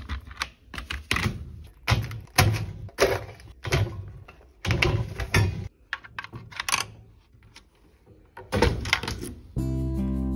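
Irregular knocks and clicks, two or three a second, easing off for a couple of seconds before a last cluster; background music starts near the end.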